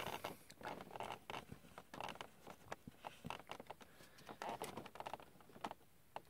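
Faint, scattered clicks and soft taps of hands handling small plastic toys as a minifigure is set down.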